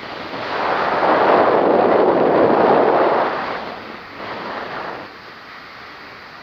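Wind blasting across the microphone in flight: a strong gust lasting about three seconds, then a shorter one around four seconds in, over a steady airflow rush.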